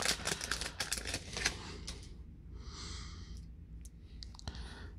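Baseball cards being handled just out of a freshly opened pack: a quick run of small clicks and rustles in the first couple of seconds, then a soft swish near the middle.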